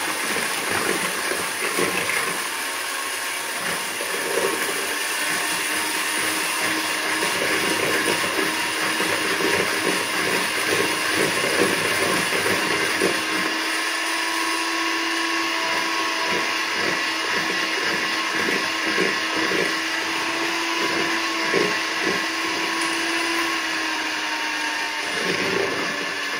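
Electric hand mixer running steadily, its twin beaters whisking eggs and sugar in a plastic bowl until the sugar dissolves.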